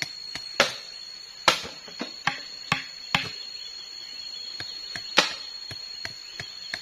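Irregular sharp wooden knocks and chops, half a dozen louder strikes with lighter taps between, from wood being struck by hand at a bushcraft camp. A steady high insect whine runs underneath.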